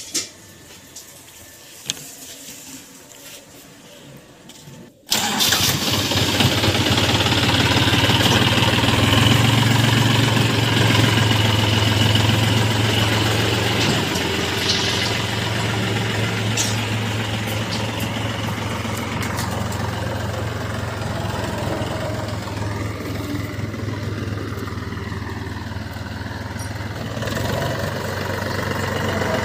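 A few light clicks and handling noises for about five seconds, then a New Holland 4710 tractor's diesel engine comes in suddenly and loud, running steadily as the tractor drives slowly.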